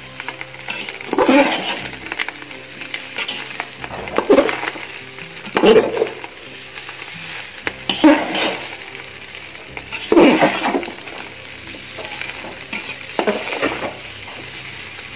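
A perforated metal ladle scrapes and tosses fried rice around a metal pot over a steady sizzle, with a louder scraping stroke every two seconds or so.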